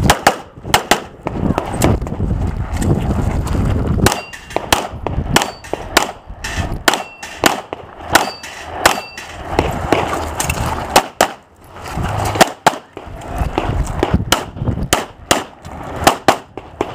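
Semi-automatic pistol firing many sharp shots in quick strings, with short pauses between strings as the shooter moves to new firing positions.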